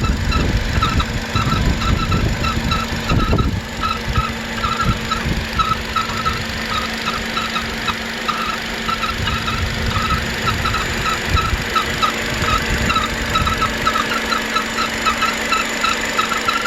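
Renault F4R 2.0-litre four-cylinder engine in a Nissan Terrano running with a newly appeared whistle and grinding noise: a high chirping squeal that repeats several times a second over the engine's steady hum. The low rumble is heavier for the first few seconds.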